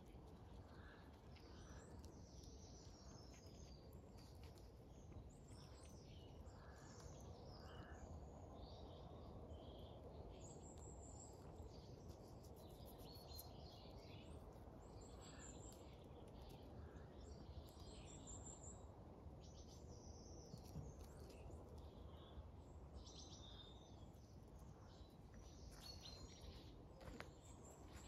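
Faint outdoor ambience with small birds chirping and calling on and off over a low, steady background hiss.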